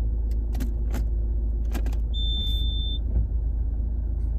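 2010 Ford Focus TDCi diesel engine idling with a steady low rumble. There are a few short clicks in the first two seconds and a single steady high-pitched beep, just under a second long, about two seconds in.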